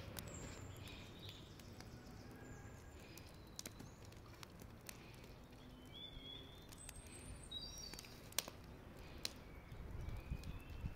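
Faint outdoor ambience: a low steady rumble, a few short bird chirps around the middle, and scattered sharp clicks in the second half.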